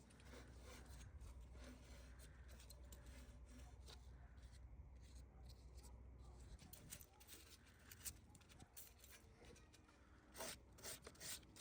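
Near silence with faint rubbing, scraping and small clicks of hands working on a lawnmower engine's exposed recoil starter, with a few short, slightly louder scrapes near the end.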